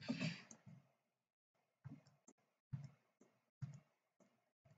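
Faint clicks of a computer mouse, about six short separate clicks spaced roughly half a second to a second apart, after a brief louder rustling noise at the very start.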